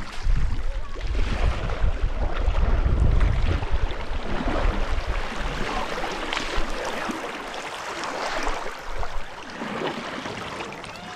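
River water rushing and splashing around a raft, with wind buffeting the microphone, heaviest in the first few seconds before it eases.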